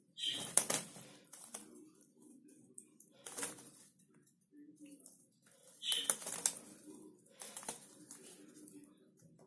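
Lovebirds bathing in shallow water in a sink, beating their wings and shaking their feathers in four short splashing flurries, two of them led by a brief high chirp.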